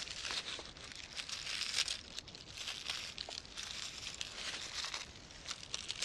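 Snowshoe steps crunching in snow, with irregular scraping and crackling as cut dead wood is dragged over the snow.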